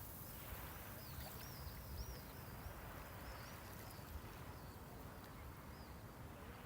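Small waves washing gently on the seashore, with a bird chirping a quick run of high, arching notes for a few seconds in the middle.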